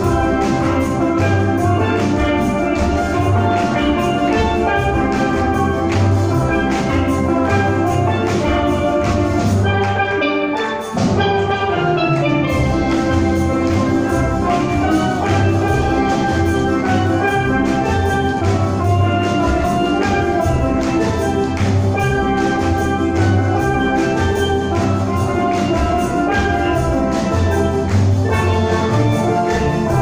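Steel band of many steel pans playing a tune live, with ringing melody notes over low bass notes. The music thins out briefly about ten seconds in, then the full band comes back in.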